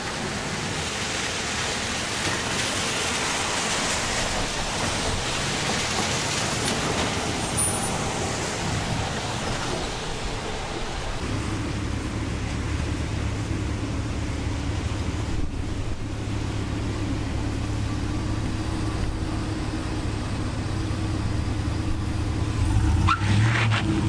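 A steady hiss of rain and wet street noise. About ten seconds in, a pickup truck's engine starts to be heard idling close by, a steady low hum that grows louder near the end.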